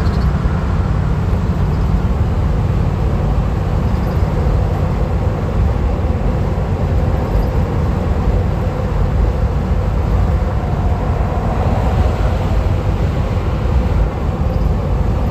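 Van driving at highway speed: a steady low rumble of road and engine noise.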